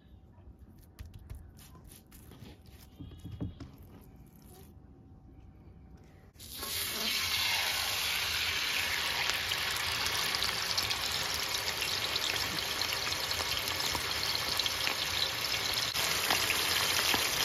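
A slab of raw meat is laid into a pan of hot oil, and loud, steady sizzling starts suddenly about six seconds in as it begins to fry.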